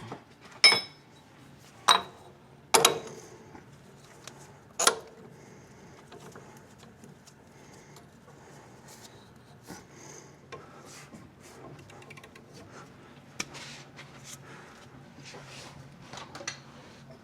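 Steel tools and parts clanking as they are handled: four sharp metal clanks in the first five seconds, then quieter scattered knocks and handling noises.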